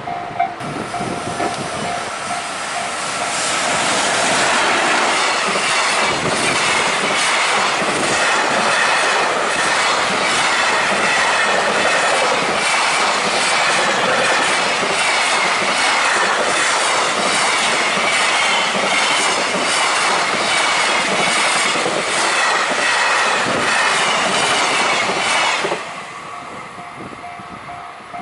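A train passing close by at speed, its wheels clattering rapidly over the rail joints with a squealing whine above. The sound builds over the first few seconds, holds loud, then drops away suddenly near the end.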